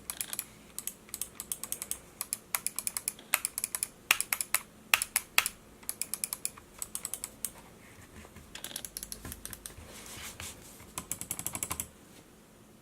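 Logitech G900 gaming mouse buttons clicking in quick, irregular runs of sharp clicks. There is a quieter stretch about two-thirds of the way in, then a fast flurry of clicks near the end.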